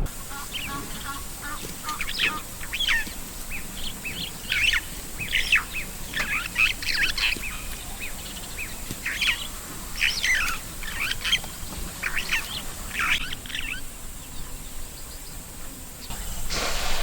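Wild birds calling, a busy run of short, sharp chirps and calls that thins out about fourteen seconds in. A louder rushing noise rises near the end.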